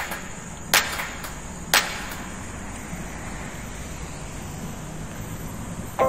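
Bicycle riding along a paved path: a steady rush of wind and tyre noise, with sharp clicks about once a second that stop about two seconds in.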